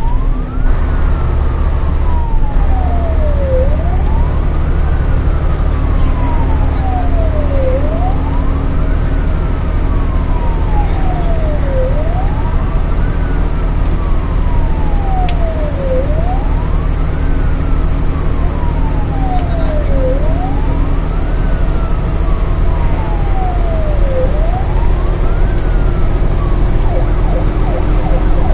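Fire engine siren heard from inside the cab, wailing in repeated sweeps: a quick rise then a long, slow fall, about every four seconds, over the steady drone of the truck's engine. The siren cuts off near the end.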